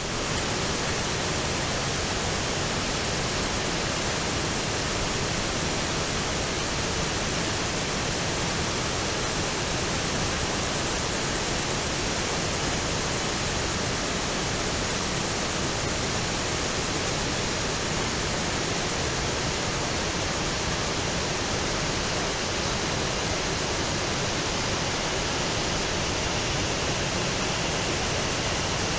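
River rapids: whitewater rushing steadily over rock ledges, an even, unbroken wash of water noise.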